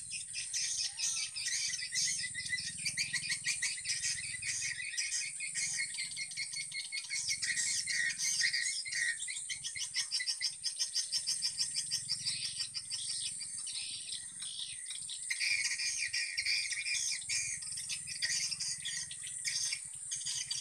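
Swiftlet calls at a swiftlet house: dense, fast twittering and clicking chirps repeated without a break, over a steady high whine.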